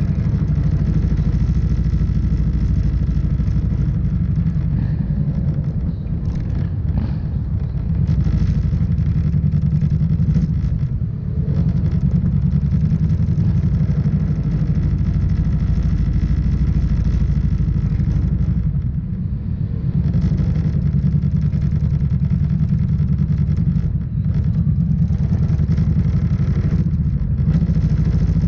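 Kawasaki Vulcan motorcycle engine running steadily under way, heard from the bike itself with wind rush over the microphone. Its level dips briefly a few times.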